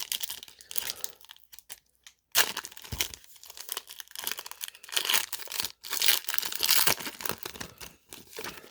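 Trading-card pack wrapper being torn open and crinkled by hand: irregular crinkling rustles, a brief pause, then a sharp tear about two and a half seconds in and more crinkling.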